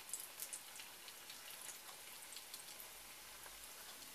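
Flour-tortilla chimichangas frying in hot oil in a pan: a faint steady sizzle with scattered small crackles and pops.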